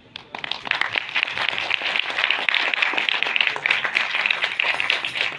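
Audience applause, many hands clapping, starting a moment in and keeping up at a steady level.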